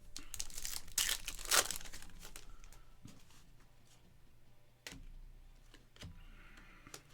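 Foil trading-card pack wrapper being torn open and crinkled, loudest about a second and a half in, followed by a few light clicks and taps.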